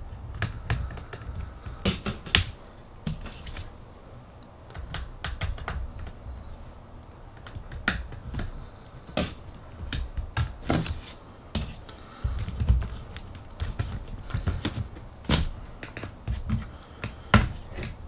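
Hands working inside an opened Acer Aspire S3 ultrabook as the screws holding its battery are taken out: irregular small clicks and taps of tool and fingers on metal and plastic, over low handling thumps and rumble.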